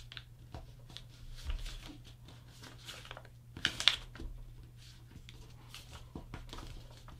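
A sheet of paper being folded and creased by hand, with soft scattered rustles and a louder crinkle about three and a half seconds in, over a faint steady low hum.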